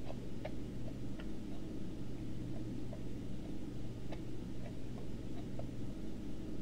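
A steady low hum with faint light clicks scattered irregularly through it.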